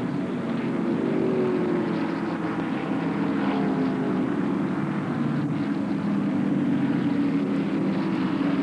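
A pack of NASCAR Winston Cup stock cars running at racing speed, their V8 engines blending into one steady drone. Now and then an engine note glides in pitch as cars sweep past.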